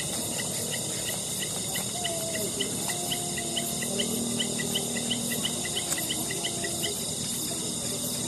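Night insect chorus of crickets: a steady high-pitched drone, with a quick regular run of short chirps through the middle and faint wavering lower tones beneath.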